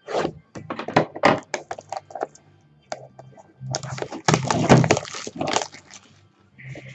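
A sealed box of trading cards being torn open by hand: sharp crackling and tearing of its plastic wrap and cardboard, in quick bursts. The loudest, densest stretch comes a little past the middle.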